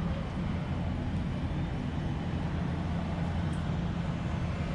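Steady low drone with a hiss from a parked Boeing 737-800 airliner during boarding.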